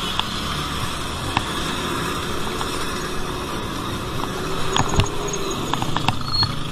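Steady rumble of road traffic and motor vehicle engines, with a few short sharp clicks and a faint droning tone that rises and falls in the middle.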